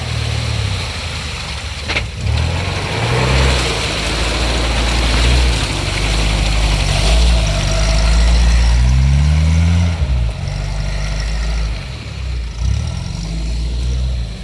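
Off-road 4x4's engine working under load and revving, its pitch rising and falling. The engine note climbs steadily for about a second and a half past the middle, then drops suddenly, and there is a single sharp knock about two seconds in.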